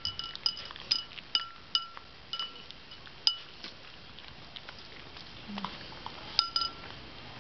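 A small dog licking and nosing an emptied food bowl on the floor, which knocks and clinks with short ringing tones. A quick run of clinks comes in the first few seconds, then they thin out, with a few more near the end.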